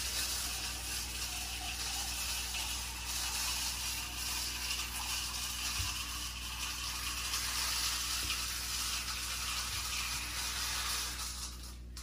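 Kitchen tap running in a steady hiss, turned off shortly before the end.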